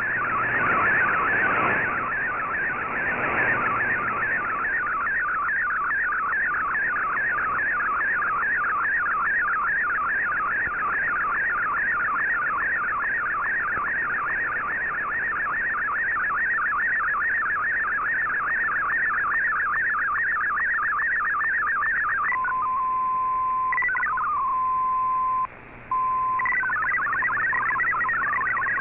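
MFSK digital data signal from a shortwave broadcast received in AM mode: a dense stream of warbling, sweeping tones between about 1 and 2 kHz carrying a colour image. About 22 seconds in it settles to a single steady tone with a short break, then fast MFSK64 text tones resume near the end.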